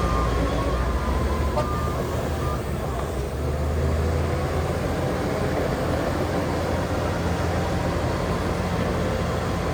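Heavy diesel earthmoving machinery running with a steady low rumble. A reversing alarm beeps about once a second for the first two to three seconds, then stops.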